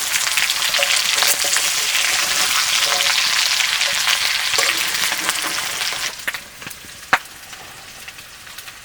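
Chicken frying in hot oil in a pot, sizzling loudly as it is stirred. About six seconds in the sizzle drops sharply to a quieter hiss, and a single sharp knock follows about a second later.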